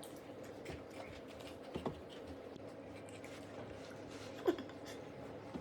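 Faint chewing and small mouth clicks of a child eating an Oreo cookie, with two brief soft sounds that fall in pitch, about two seconds in and again after four seconds.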